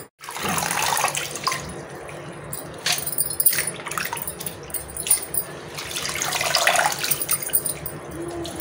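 Water splashing and sloshing in a stainless-steel pan as a hand stirs and lifts wet ponnaganti greens out during washing, with drips and a few light clicks.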